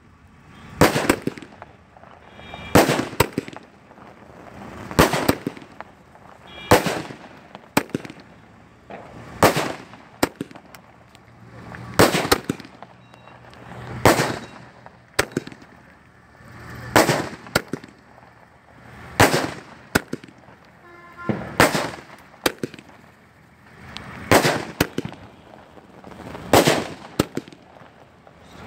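500-shot aerial firework cake (sky cracker) firing in sequence: a loud, sharp bang about every two seconds as each shot goes off, with fainter pops and crackles between the bangs.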